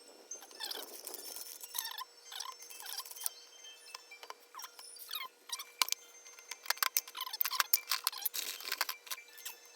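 Irregular light clicks, clinks and short squeaky scrapes of small metal parts and hand tools being handled, with a faint steady hum underneath.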